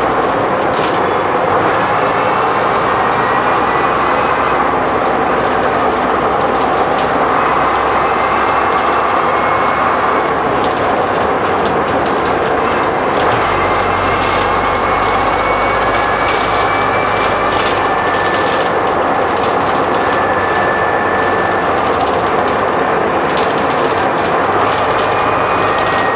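Ride noise inside a Bristol VR double-decker bus on the move: steady engine and road rumble with scattered body rattles. A high whine rises slowly in pitch several times as the bus picks up speed.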